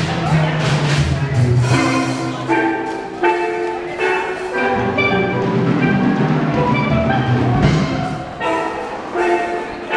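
Steel band playing a tune: tuned steelpans struck in quick runs of ringing metallic notes over a low line from the barrel-sized bass pans.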